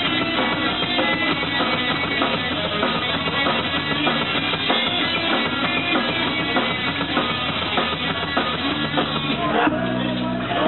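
Live rock band playing: electric guitar, bass guitar and drums. Near the end a chord rings on.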